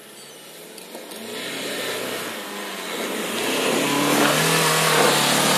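Renault Duster AWD's diesel engine revving hard under load as the SUV climbs a loose dirt slope, getting steadily louder as it comes closer, with its tyres scrabbling and spraying dirt.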